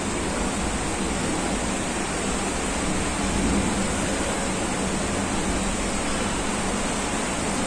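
Steady rushing hiss of heavy rain falling outside, heard from indoors.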